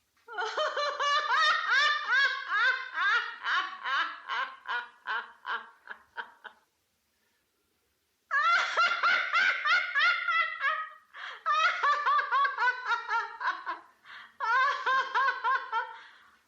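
A woman laughing in a silly, high-pitched way, in quick rhythmic bursts of several "ha" pulses a second that slowly fade. After a silent break of about two seconds she starts again in several bursts.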